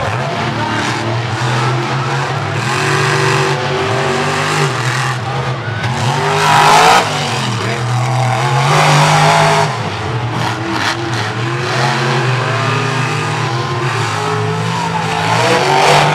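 Two monster truck engines racing at high revs, their pitch rising and falling as the drivers work the throttle. There are two louder full-throttle surges, about a third and about halfway through.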